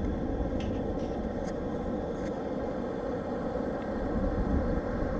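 Wind buffeting an action camera's microphone on a beach, over the noise of breaking surf: a steady, heavy, low noise.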